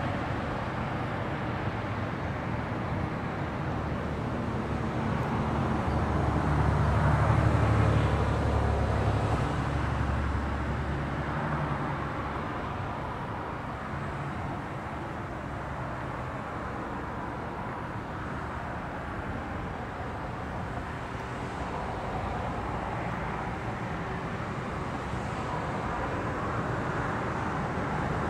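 Steady outdoor traffic noise, with a motor vehicle passing: its engine hum swells to a peak about seven seconds in, then fades.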